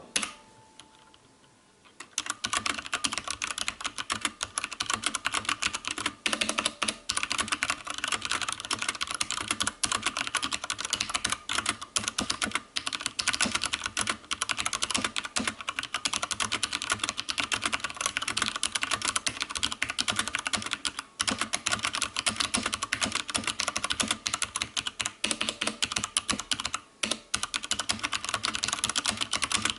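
Fast, continuous typing on a Drevo Calibur mechanical keyboard with genuine Cherry MX Brown switches: a dense stream of keystroke clacks that starts about two seconds in.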